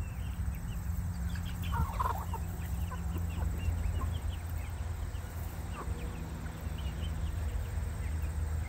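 A flock of young chickens peeping and clucking, with many short high chirps scattered throughout and a louder call about two seconds in, over a steady low hum.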